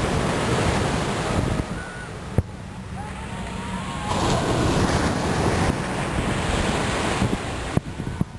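Ocean surf breaking on the beach, the rush of water swelling and falling back twice, with wind buffeting the microphone.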